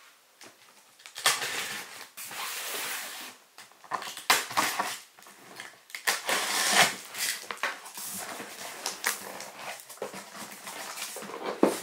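Box cutter drawn along the packing tape of a cardboard box, then the cardboard flaps pulled open: a series of rasping, scraping strokes with cardboard rustles and clicks.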